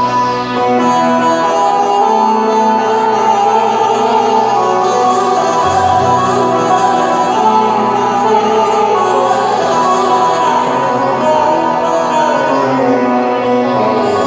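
Turkish folk music led by a plucked string instrument, playing steadily and without pause.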